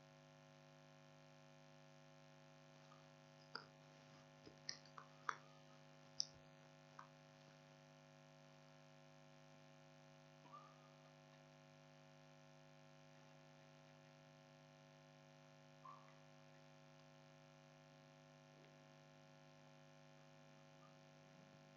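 Near silence: a steady electrical hum, with a cluster of short sharp clicks about four to six seconds in and a couple of fainter ones later.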